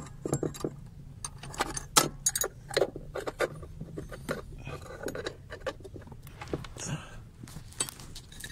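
Irregular metallic clicks and clinks from hand work on the brake pedal assembly under the dashboard, many short taps coming in quick, uneven runs.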